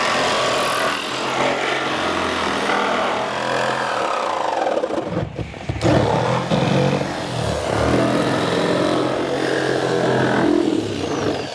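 Petrol chainsaw revving hard as it cuts through a car's steel body shell. The engine note rises and falls under load, with a brief drop about five seconds in before it picks up again.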